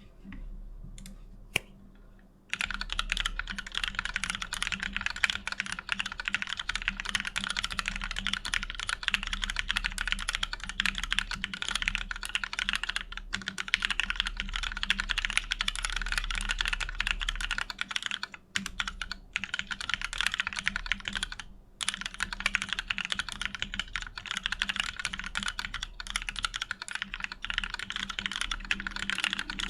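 Fast, continuous typing on a Meridian custom mechanical keyboard with lubed old Cherry MX Black linear switches, a POM plate and PBT keycaps. A few single key presses come first, then steady typing starts about two and a half seconds in, with a couple of short pauses about two-thirds of the way through.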